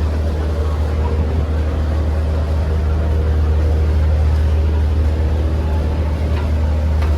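Steady low drone of a river ferry boat's engines, heard on board.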